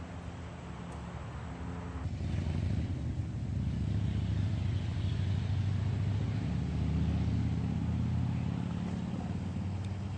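Diesel locomotive engine running with a low, steady rumble that grows louder about two seconds in.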